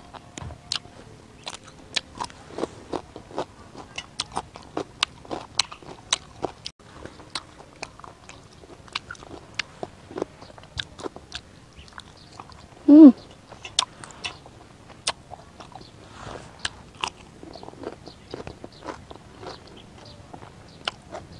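Light, irregular clicks and taps, two or three a second, of food and utensils being handled close to the microphone, including a stick stirring sauce in a small ceramic bowl. One short, pitched call that rises and falls stands out about two-thirds of the way through.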